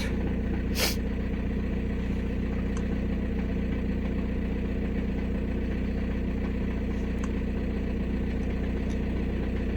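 Volkswagen Passat B6's 1.9 TDI (BXE) pumpe-düse four-cylinder diesel idling steadily. There is a single short click about a second in.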